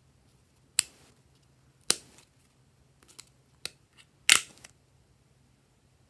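Snap-on plastic lid of a jelly cup being pried off: a series of sharp plastic clicks and cracks, spaced out at first and coming quicker, the loudest a crackling snap about four seconds in as the lid comes free.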